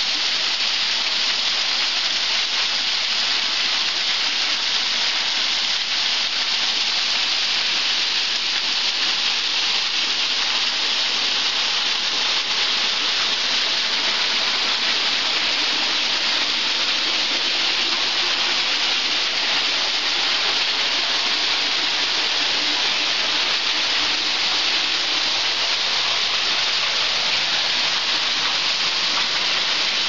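Small waterfall pouring between boulders and splashing onto rock: a steady, unbroken hiss of falling water.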